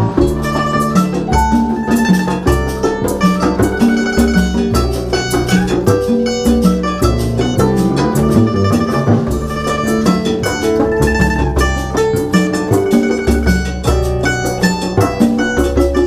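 A small band playing Latin music, with a pear-shaped Chinese lute plucking a quick melody over low bass notes.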